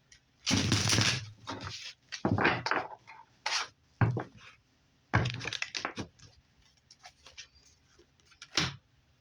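Tarot cards being shuffled and drawn by hand, heard as several short bursts of papery swishing and light taps on a table, with one sharper tap near the end.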